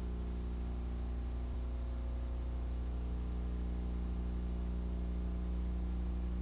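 Steady electrical hum made of several low tones, over a faint hiss: the background noise of an old videotape audio track with no programme sound on it.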